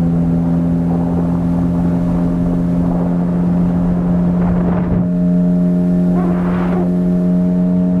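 15 hp outboard motor running steadily, pushing a small boat through the water.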